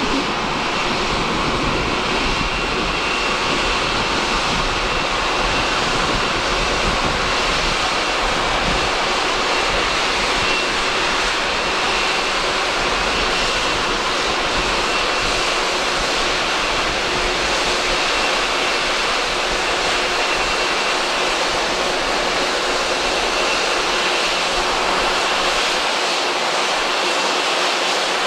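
Boeing 787-8's Rolls-Royce Trent 1000 jet engines running at taxi power as the airliner rolls slowly in to its gate: a steady rushing sound with a thin, even high whine on top.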